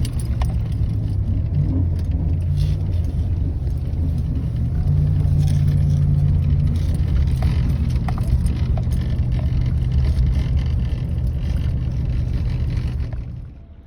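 Car or truck engine running steadily while driving, a loud low drone with light rattles. It drops away suddenly near the end.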